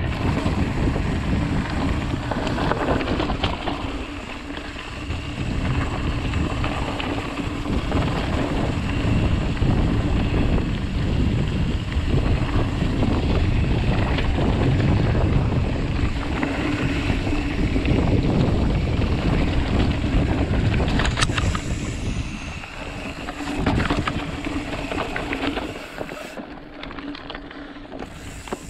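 Wind rushing over the microphone as a mountain bike rolls down a dirt singletrack, with tyre noise and a few clicks and knocks from the bike. It grows quieter over the last few seconds.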